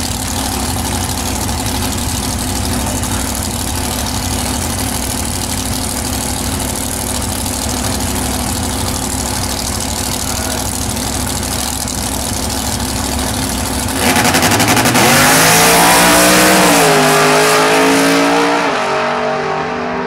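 Two drag racing cars idling on the starting line. About fourteen seconds in both launch at full throttle, louder, engine pitch rising with a drop at each gear change, then fading as they pull away down the track.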